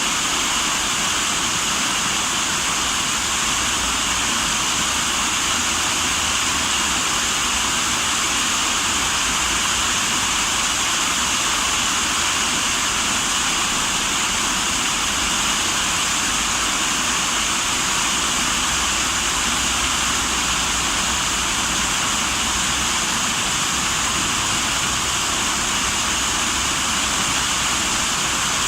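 Running water rushing steadily and without a break.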